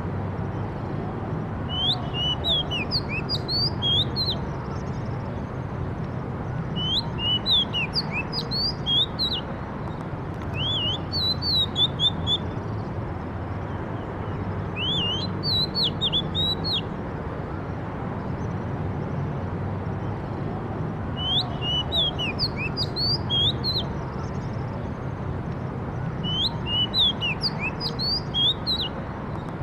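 A songbird singing short phrases of quick, sweeping whistled notes, about every four to five seconds, six phrases in all, over a steady low background rumble.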